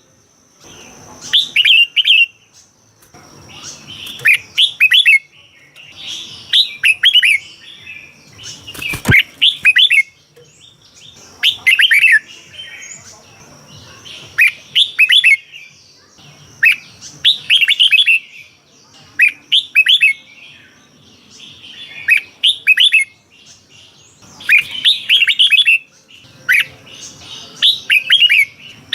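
Red-whiskered bulbul singing: short, quick warbling phrases of bright chirping notes, each about a second long, repeated every two to three seconds.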